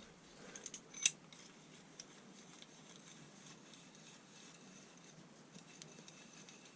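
A few light clicks and taps of small metal tools being handled, the sharpest about a second in, then only faint scattered ticks over quiet room noise.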